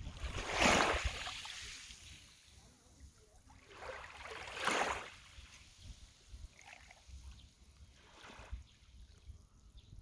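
Small waves of a calm sea washing onto the shore: two larger washes, one about a second in and one near the middle, then fainter ones, over a low rumble.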